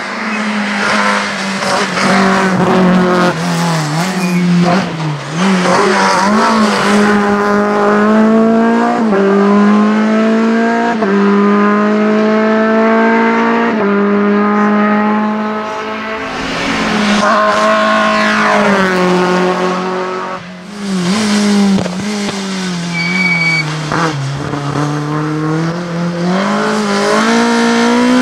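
Renault Clio RS race car's four-cylinder engine at high revs, its pitch climbing through each gear and dropping back sharply at every upshift.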